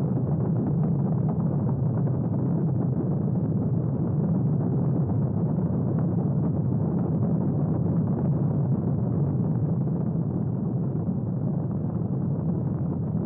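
Rocket engines at liftoff: a steady, unbroken low rumble.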